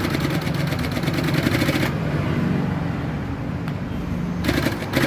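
Industrial walking-foot sewing machine (Benho 0303CX) stitching. It runs fast with a rapid, even clatter for about two seconds, then the motor hums more quietly, and a short burst of stitching comes near the end.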